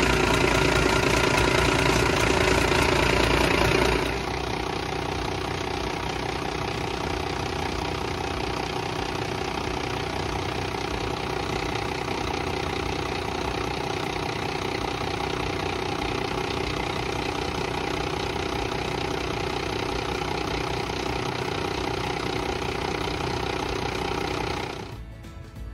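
International DT466 inline-six turbo-diesel idling just after start-up, heard close at the turbocharger. It is louder for about the first four seconds, then settles to a steady lower idle, and drops away near the end.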